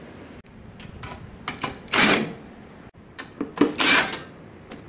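Cordless impact driver run in short bursts, backing screws out of a mini excavator's sheet-metal panel, with two longer, louder bursts about 2 and 4 seconds in and a few brief ones between.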